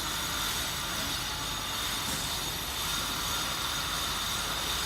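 Steady hum with a high-pitched whine from the Maccom M88 double-head aluminium cutting saw, powered up for a test run.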